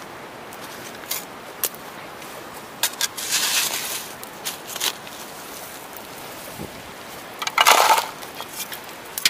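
Shovel scraping into river gravel and tipping stones into a gold pan: a crunching scrape about three seconds in and a louder one near the end, with scattered clicks of stones.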